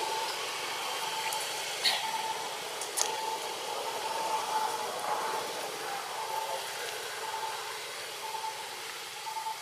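Steady outdoor hiss with a faint short note repeating every half-second or so, and two sharp clicks about two and three seconds in.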